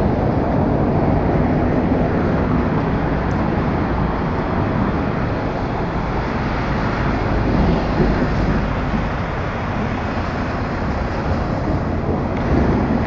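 Steady city street traffic noise from cars and taxis passing, a continuous wash of sound with no single event standing out.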